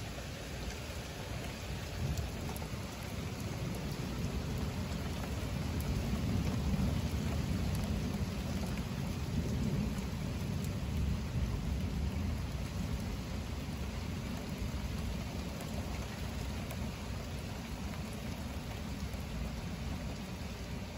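Steady rain falling in a thunderstorm, with a long low rumble of thunder that builds about two seconds in, peaks midway and fades away over roughly ten seconds.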